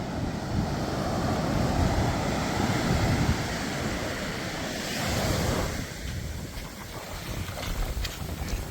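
Waves breaking and washing on a sandy shore, with wind buffeting the microphone in low rumbles.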